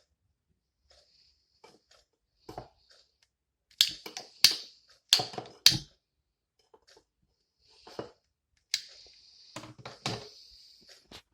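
A run of sharp clicks and knocks from things being handled, four of them loud in quick succession, followed by a steady hiss of about two seconds.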